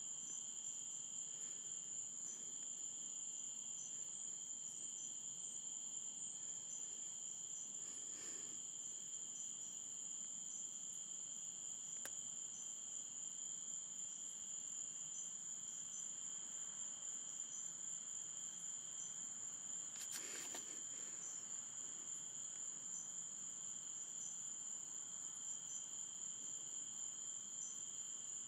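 Steady, high-pitched chorus of night insects, two pitches held without a break, with brief rustles about eight seconds in and again about twenty seconds in.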